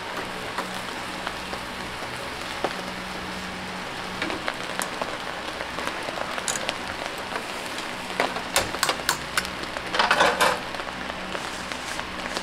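Eonyang bulgogi (thin-sliced marinated beef) sizzling on a wire grill over hot coals: a steady crackling hiss, with a flurry of sharper pops and spits about two-thirds of the way in.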